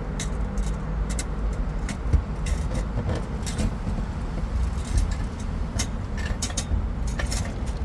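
Scattered light clicks and taps of fuel pump parts being handled and pushed into place in the fuel tank, over a steady low rumble.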